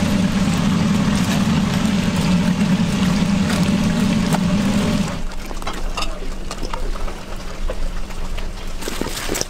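Steady hum of a commercial kitchen's fryer and exhaust hood with a hiss of frying over it, cutting off about five seconds in; after that, quieter wet clicks and squelches of fried chicken being tossed in sticky sauce.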